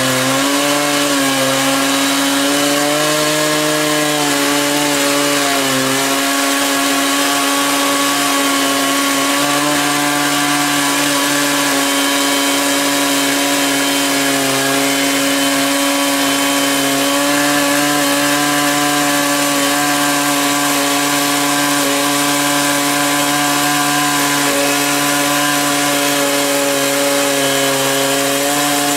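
Husqvarna 365 two-stroke chainsaw running under load as it rip-cuts lengthwise through an oak log. The engine note wavers slightly in pitch for the first few seconds, then holds steady.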